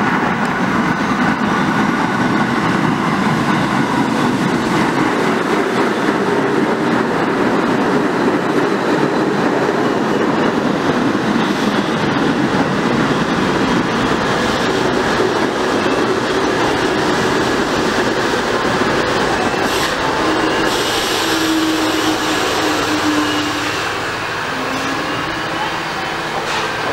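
New York City subway train pulling into an underground station: a loud, steady rumble with clattering wheels and a thin steady whine. The sound eases off a little a few seconds before the end as the train comes to a stop.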